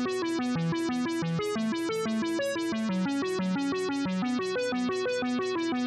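Background music: a quick, evenly paced synthesizer arpeggio of short repeated notes in a looping melodic pattern.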